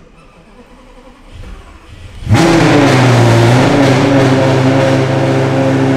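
2008 Lamborghini Gallardo Superleggera's V10 engine starting: a short crank, then it catches a little over two seconds in, flares briefly and settles into a steady fast idle, heard from inside the cabin. The engine is burning a lot of oil, which a fellow owner puts down to leaky valves or cylinder scoring.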